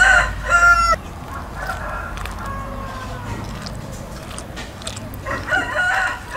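A rooster crowing: a burst of calls at the start, a long falling crow from about a second and a half in, and more crowing near the end.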